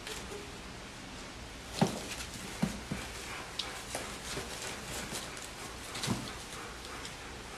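Three-week-old puppies playing: a handful of short squeaks and yips with small scuffling bumps, the loudest about two seconds in and another near the end.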